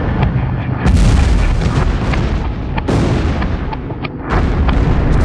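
Explosion sound effects: a run of loud, deep booms, with fresh blasts striking about one, three and four and a half seconds in, each fading out slowly.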